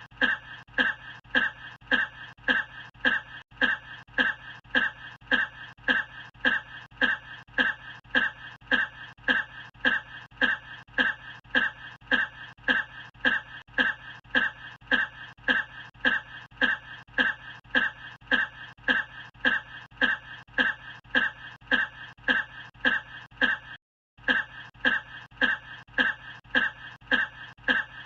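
A person's short cough repeated on a tight loop, the same cough about twice a second, with a split-second gap of silence late on.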